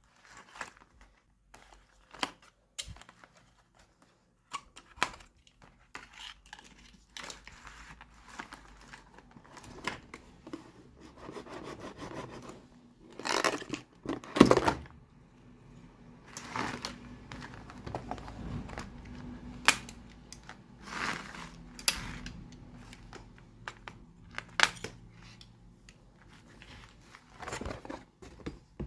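Small plastic toy pieces and their packaging being handled: scattered clicks, taps and crinkling, with a louder cluster of clatter about halfway through.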